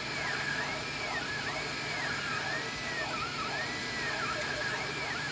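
Anycubic Kossel delta 3D printer printing, its stepper motors whining in pitch that rises and falls in smooth repeated arcs, a little more than one a second, as the print head traces the round shell of a hollow threaded rod.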